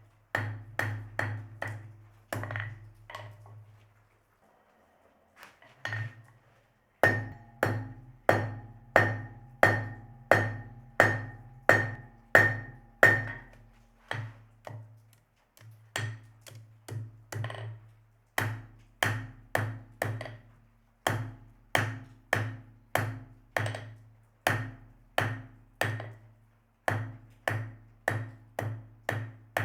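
Blacksmith's hammer striking metal on an anvil, about two blows a second, each blow ringing. There is a pause of about two seconds after the first few seconds and a few shorter breaks later on.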